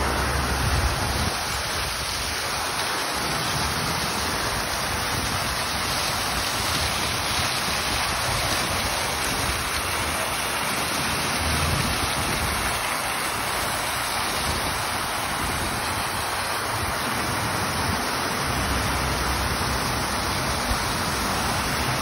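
Fountain water jets spraying and splashing down into a basin: a steady, even rushing hiss of falling water.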